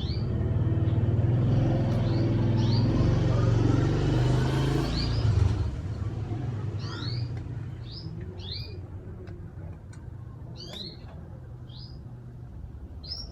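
A motor vehicle's engine rumbling close by, strongest in the first five seconds or so, then fading as it passes. Small birds chirp over it throughout, short falling chirps that come more often once the rumble has died down.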